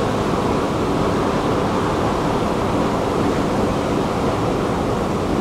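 Steady, even rumbling noise of a long subway-station escalator running while riding it down.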